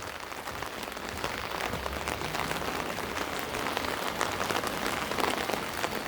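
Steady rain falling, a continuous hiss dotted with many small drop ticks close to the microphone.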